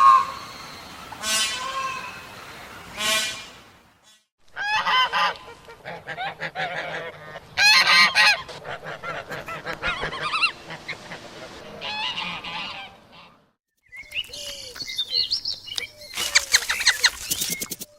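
Domestic fowl calling loudly and repeatedly, in short calls. The sound stops briefly about four seconds in and again near fourteen seconds, between separate stretches of calling.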